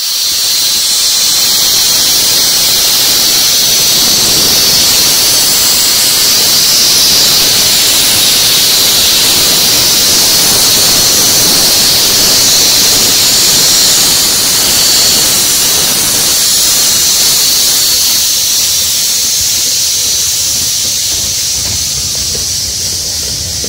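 Loud steady hiss of steam jetting from a 15-inch-gauge steam locomotive's open cylinder drain cocks as it moves slowly past, easing off a little near the end.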